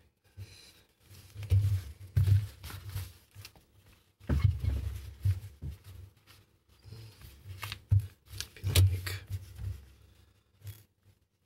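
Juki DDL-555 industrial straight-stitch sewing machine stitching through strap webbing in three short runs of a second or two each, with the webbing handled in between.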